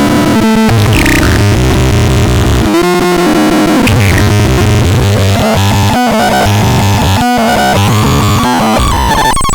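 Loud, harsh electronic synthesizer music: dense, distorted tones that jump abruptly from one pitch block to the next over a noisy wash, with brief sudden cut-outs about six and seven seconds in.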